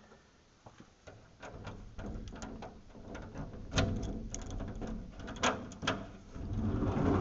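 A rusty metal latch on a window frame being worked by hand: a scatter of sharp clicks and knocks over a low rumble.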